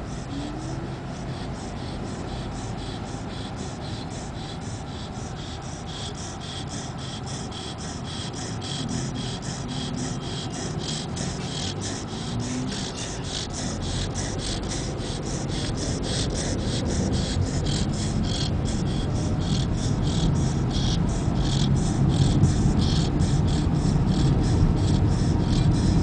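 Chow chow dog snoring in his sleep with raspy breaths, over road noise in a moving car that grows louder toward the end.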